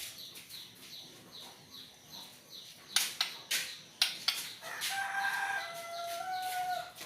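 A rooster-like crow past the middle: one call about two seconds long, dropping and rising in a few steps of pitch. Before it come a run of faint, evenly spaced high chirps and a few sharp clicks.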